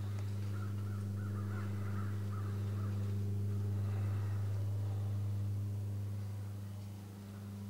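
Crows cawing a few times over a steady low hum.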